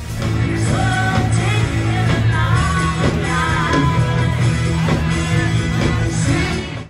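Live pop-rock band playing, with women singing into microphones over electric guitars, bass and keyboards.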